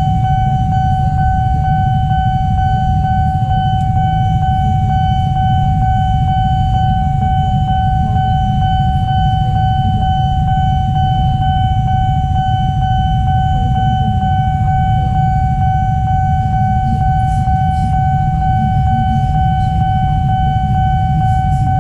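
Railway level-crossing warning alarm sounding one unbroken, steady high tone while the barrier is down, over a low rumble of idling traffic.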